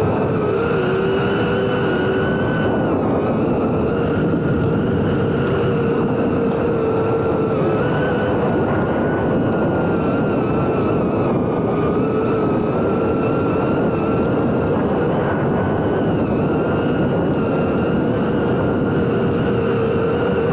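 FPV quadcopter's electric motors and propellers whining steadily in flight over a rush of prop wash. The pitch wavers slightly and dips briefly a few times.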